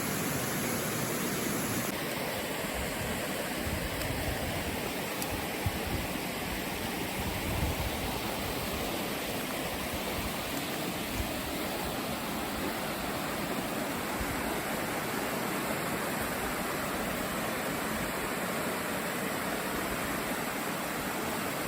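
Mountain stream water rushing, a steady even noise, with a few faint knocks.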